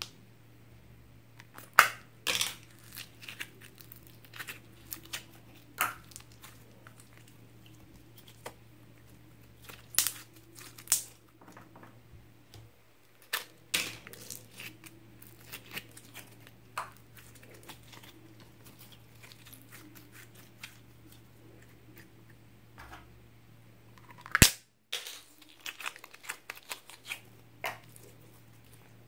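Slime being squeezed and pressed by hand in a glass dish, giving irregular sharp clicks and pops as trapped air bursts, with one especially loud pop a few seconds before the end.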